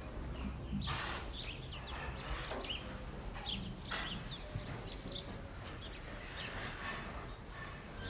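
Barn ambience: small birds chirping in short, scattered calls over a low steady rumble, with a few brief rustles.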